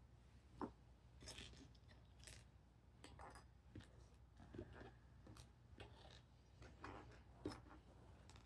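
Small plastic building-set pieces being handled and sorted: faint scattered clicks, taps and rustles, with two sharper clicks, one about half a second in and one near the end.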